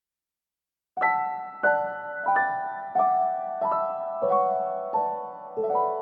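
Slow solo piano background music, beginning about a second in: single notes struck in an even, unhurried pattern, each ringing on and fading.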